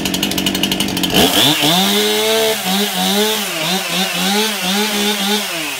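STIHL MS 261 C-M chainsaw's two-stroke engine running just after a cold start: a rapid, even stutter for about a second, then a smoother, higher engine note that wavers up and down, dipping briefly near the end.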